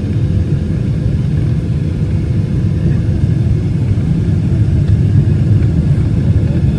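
Airliner cabin noise during landing: a steady, loud low rumble of the jet engines and airflow, heard from a window seat near the wing as the plane comes down over the runway.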